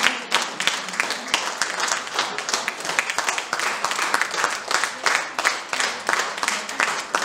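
Audience applauding with steady, dense hand clapping.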